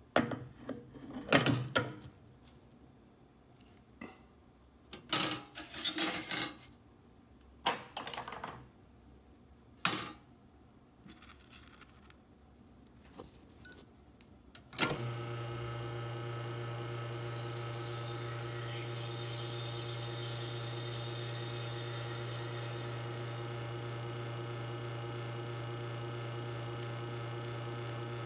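Knocks and metallic clatters from handling the espresso machine's parts, then at about 15 s the Faema E61 Legend's pump starts brewing with a steady, even hum. A high hiss comes in over the hum for a few seconds as the shot runs.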